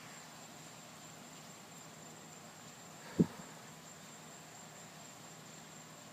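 Faint steady high-pitched trill of crickets. A single short thump about three seconds in.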